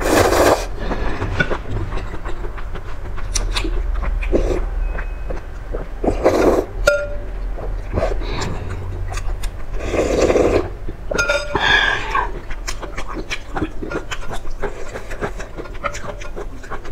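Slurping noodles and sipping spicy broth from a ladle, in several short slurps, with wet chewing and lip smacks in between.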